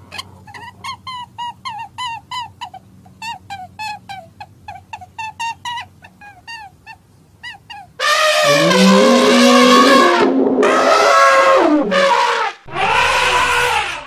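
A run of short, high squeaks, about three a second, for the first half. Then, from about eight seconds in, African elephants trumpeting: three long, loud, wavering calls with short breaks between them.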